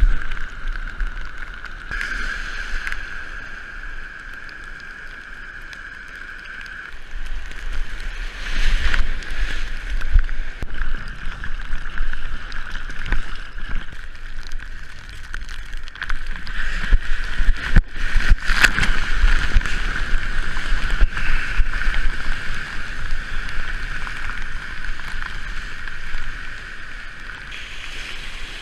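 Strong wind buffeting the microphone, with lake water sloshing and waves breaking, under a steady high-pitched tone.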